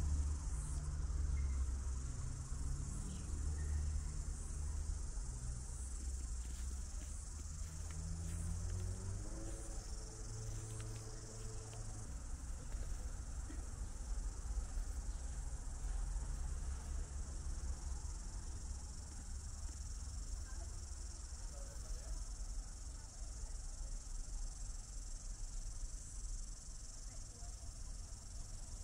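Steady, high-pitched chorus of insects singing outdoors, with a low rumble underneath that is strongest in roughly the first half.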